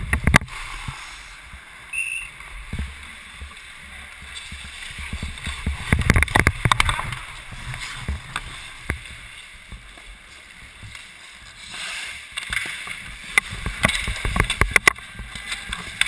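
Ice hockey play close to the goal, heard from a goalie's head-mounted camera: skate blades scraping the ice and sharp clacks of sticks and puck, with the rumble of the camera moving. It swells twice, about six seconds in and again from about twelve seconds on.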